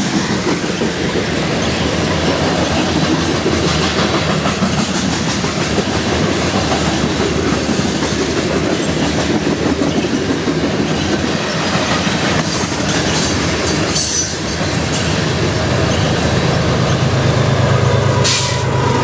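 Covered hopper cars of a grain train rolling past at speed: a steady rumble and clatter of steel wheels on rail, with brief high squeals a little past halfway. Near the end the diesel locomotives at the rear of the train come by, adding a steady low engine drone.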